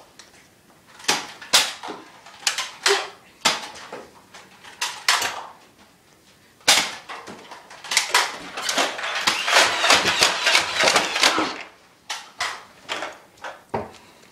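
Nerf blaster battle noise: scattered sharp clicks and knocks as blasters are primed and fired and players scramble about. A denser stretch of rustling and scuffling comes a few seconds past the middle.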